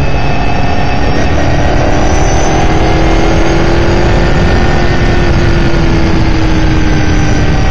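S5000 open-wheel race car's 5.0-litre Ford V8 heard from the cockpit, pulling steadily in one gear, its pitch rising slowly and then easing off slightly near the end. Over it come a thin high whine and heavy wind and road noise.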